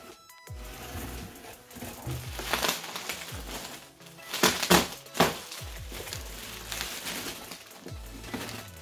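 Clear plastic and bubble-wrap packing crinkling and rustling as it is pulled out of a cardboard box, loudest in a few bursts around the middle. Background music with repeated falling bass notes runs underneath.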